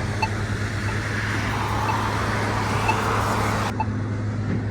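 A car passes on the road, rising and fading over a couple of seconds, while a pedestrian push button's locator tone ticks about once a second over a steady low hum.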